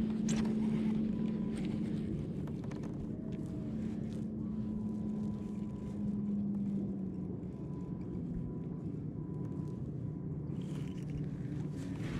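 A boat motor's steady low hum, with a faint high whine above it. About seven seconds in the hum fades and a slightly lower one carries on. Small clicks and handling noises from the fishing reel and rod come and go.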